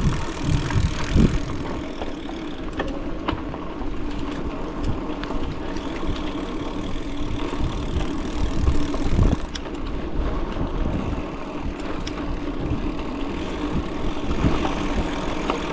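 Bicycle riding along a dirt trail: steady tyre rumble with scattered rattles and knocks over bumps, and wind buffeting the microphone in heavy low thumps during the first second or so.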